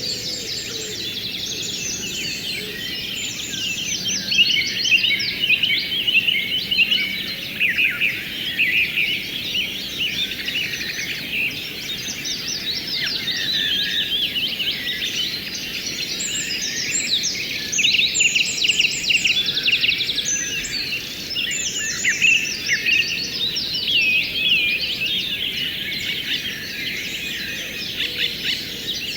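A dense chorus of many songbirds chirping and trilling at once, with rapid repeated notes and quick rising and falling whistles, over a faint steady rush of flowing water.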